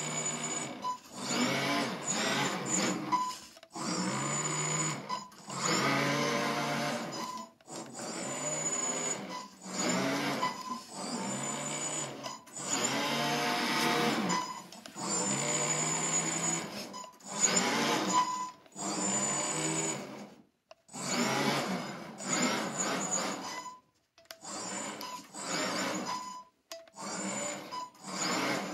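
Small RC car drivetrain whining in repeated throttle bursts of a second or two, its pitch rising and falling with speed. The source is a C3530 1100 kV brushless outrunner motor driving a multi-belt drive gearbox.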